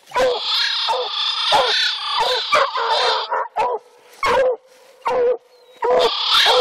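Coonhounds barking treed at the base of a tree: quick runs of short chop barks for the first three seconds, then single barks about a second apart. This is the treeing bark that tells the hunter the dogs have a raccoon up the tree.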